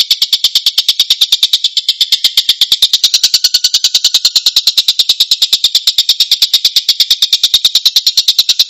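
Oriental dollarbird (tengkek buto) giving a rough, close-set rattling call: about ten harsh notes a second in one unbroken run.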